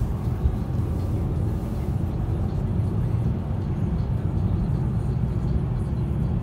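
Steady low rumble of a Lada Vesta Cross 1.8 AMT on the move, road and engine noise heard from inside the cabin.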